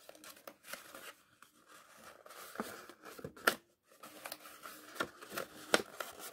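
Patterned cardstock being bent and pressed into a paper box: rustling and crinkling with sharp little snaps and clicks, the loudest about halfway through and again near the end.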